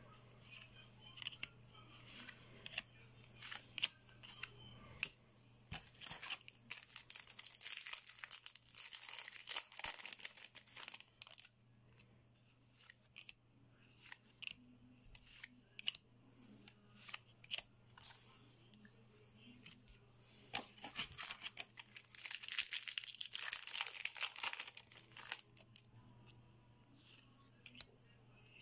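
Yu-Gi-Oh trading cards being slid off a hand-held stack one at a time, with papery swishes and sharp little clicks as card rubs over card, busier in two stretches.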